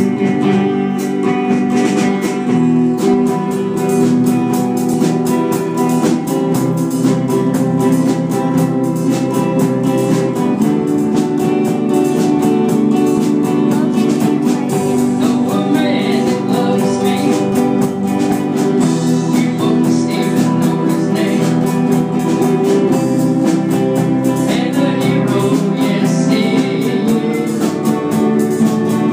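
Live church band music: an electric guitar strummed along with keyboard accompaniment, playing a slow song.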